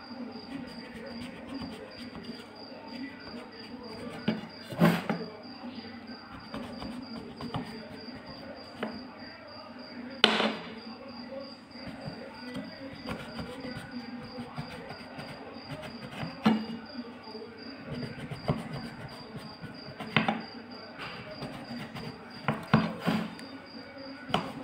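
A kitchen knife cutting through layered, butter-brushed phyllo (galash) pastry in a metal baking tin: soft crackling cuts, with sharp clicks now and then as the blade meets the tin. Beneath them runs a steady low hum and a faint, high, pulsing whine.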